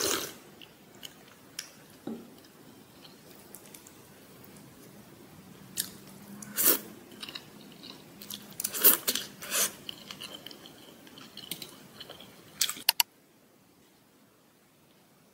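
Close-up chewing and crunching of a crisp tortilla pizza, with a few sharp clicks and clinks among the bites, the loudest cluster about nine seconds in.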